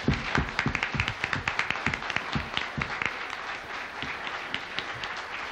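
An audience clapping in applause, with a few heavy claps close by in the first couple of seconds, loudest at the start and slowly dying down.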